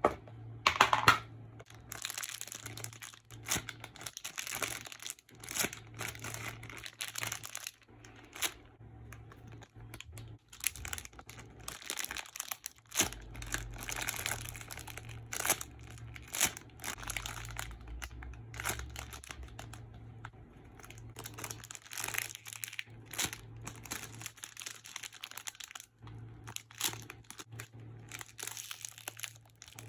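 Plastic packaging crinkling and rustling in irregular bursts as squishy toys are handled.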